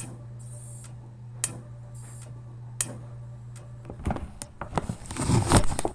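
Sharp snapping clicks about a second and a half apart, over a steady low hum: spark arcing from the Ford 302 V8's ignition coil with the coil wire pulled off, a sign the coil is firing. Near the end come louder, irregular knocks and rustling.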